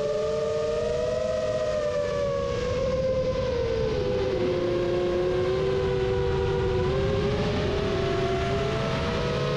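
Seven-inch FPV quadcopter's motors and propellers whining in flight, a few close tones drifting slowly up and down in pitch as the throttle changes, over a steady rush of wind.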